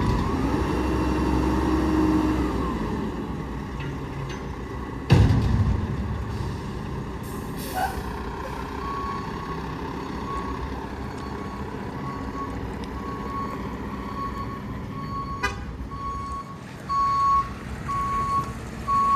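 Mack Granite roll-off truck's diesel engine running, with a short loud burst about five seconds in. From about nine seconds its backup alarm beeps evenly at one pitch while the truck reverses, and it grows louder near the end.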